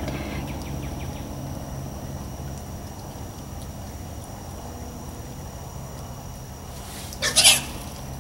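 Wild hogs feeding at close range, one giving a short, loud squeal in two quick pulses near the end.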